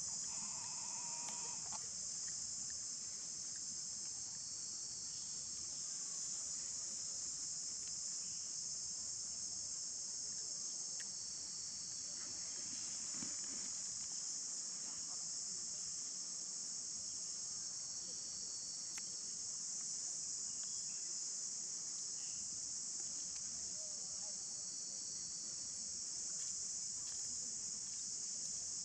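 Steady, high-pitched chorus of insects, a continuous shrill drone that hardly changes.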